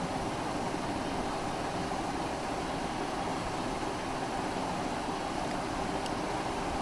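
Aquarium filter running: a steady hum and water noise that does not change.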